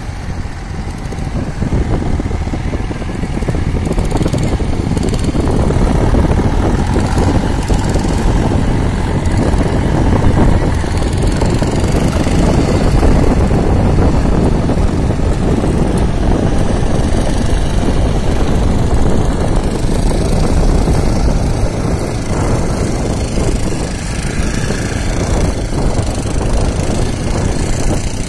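Mahindra 605 DI 4WD tractor's diesel engine running steadily under load as it hauls a fishing boat by rope, growing a little louder a few seconds in.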